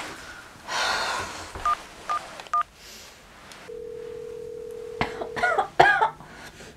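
Three short two-tone keypad beeps as a number is dialled on a corded telephone. A steady phone-line tone follows through the handset for about two seconds, then a few short distressed vocal sounds from a woman.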